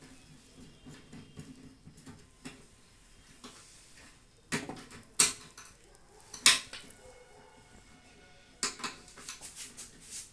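Metal clinks and clicks of hand tools and loose parts while a microwave oven is taken apart: a few sharp clinks about four and a half, five and six and a half seconds in, then a quick run of smaller clicks near the end, with light handling noise between.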